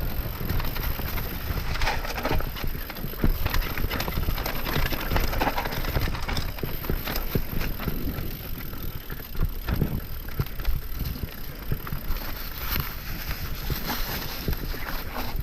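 Mountain bike on WTB Vigilante and Trail Boss tires descending a dirt trail: tires rolling over rough ground with frequent rattles and knocks from the bike, over a steady rumble of wind on the microphone.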